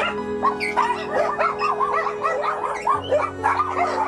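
Many dogs barking and yelping at once in a dense, overlapping chorus. Background music with sustained chords plays underneath, and the chord changes about three seconds in.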